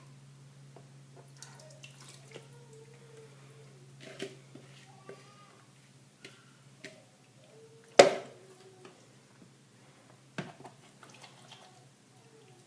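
Wet kitchen handling sounds as raw chicken pieces are worked in a citrus marinade: small drips, squelches and clicks, with a sharp knock about eight seconds in and a smaller one a couple of seconds later.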